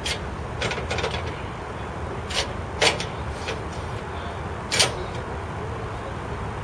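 Steady low machinery rumble, with about six sharp clanks at uneven intervals; the loudest comes near the end.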